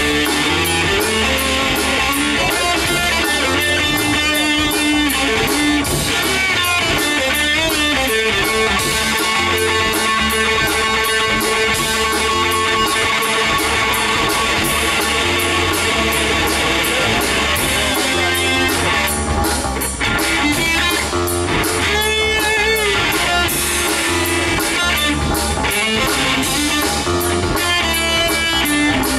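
Live rock band playing an instrumental passage on electric guitar, electric bass and drum kit, with wavering, bending electric guitar notes over a steady drum beat.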